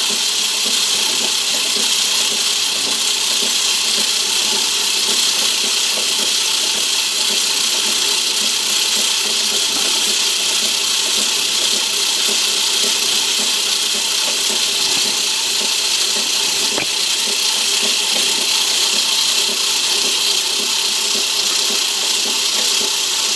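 Myford ML7 lathe running slowly under power in forward, its change gears and leadscrew driving a single-point tool through a 5-thou screw-cutting pass on a metric thread. It makes a steady mechanical whirr with gear noise and cuts off abruptly at the very end when the lathe is switched off.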